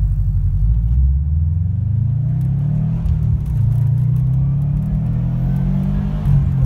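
Turbocharged flat-four engine of a 2013 Subaru WRX STI accelerating hard under boost, heard from inside the cabin: the engine note climbs, drops at a gear change about three seconds in, then climbs again.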